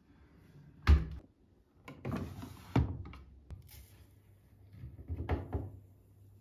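Bosch Maxx 6 front-loading washing machine: the porthole door is shut with a loud thump about a second in. The detergent drawer then slides open and powdered detergent is poured into it from a cup, making a rustling hiss.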